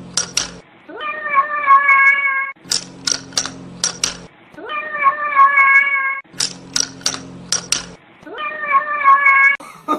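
A domestic cat's long meow, three times over, each call sliding briefly up and then holding one pitch for about a second and a half. Each meow comes after a short run of sharp clicks or taps over a low hum.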